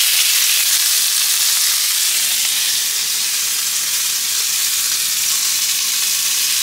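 Chicken breasts frying in butter and olive oil in a skillet: a steady sizzle.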